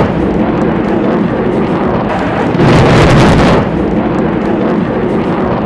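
MK-82 bomb blasts on a target range, heard as a loud rumbling boom about two and a half seconds in over continuous rumbling noise.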